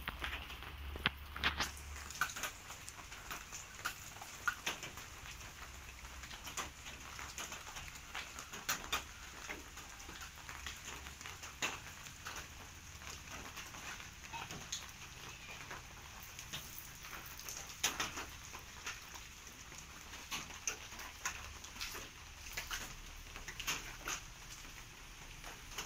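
Many light, irregular clicks and pattering from rabbits shuffling, scratching and feeding on the wire-mesh floors of their cages.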